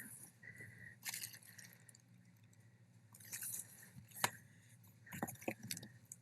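Faint close handling noises: scattered light rustles and clicks, with one sharper click about four seconds in, over a faint steady low hum.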